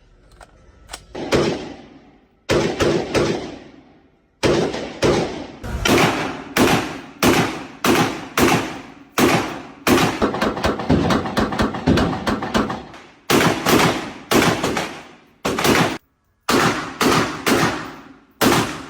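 Gunshots fired one after another, a few spaced shots and then a steady string of about two a second, each with a short ringing tail.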